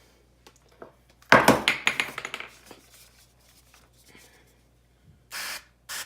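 Kitchenware clattering loudly about a second in, followed by faint handling sounds and a short hissing burst near the end.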